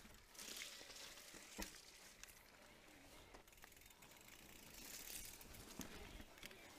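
Faint ticking of a mountain bike's freehub ratchet as the electric mountain bike coasts, with a few scattered sharp clicks from the bike on the trail.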